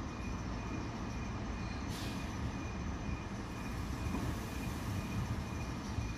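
Two coupled ALn 668 diesel railcars running slowly into the station: a steady low diesel rumble with a thin steady high tone over it. A short hiss comes about two seconds in.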